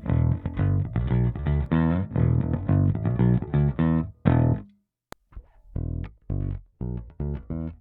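Electric bass, a Squier Precision Bass with a DiMarzio Model P pickup, played through a Hiwatt Bulldog 440 bass amplifier: a quick run of plucked notes, a break of about a second with a single click, then slower, spaced notes.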